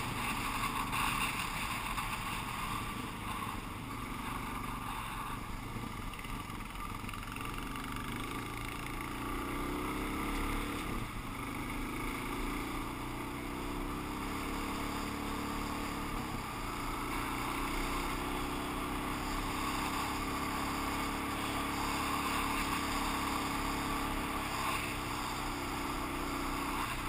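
Suzuki DR-Z400 dual-sport motorcycle's single-cylinder engine running under way, its pitch rising and falling with the throttle, under a steady rush of wind noise.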